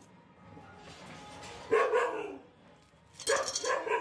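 A dog barking, with one bout of barks about two seconds in and another near the end.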